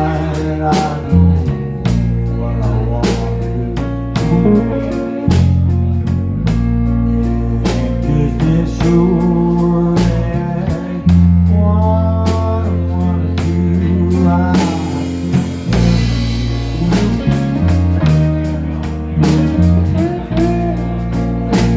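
Live blues band playing an instrumental passage: a lead guitar line with bending notes over bass and a drum kit keeping a steady beat, with a cymbal crash about two thirds of the way through.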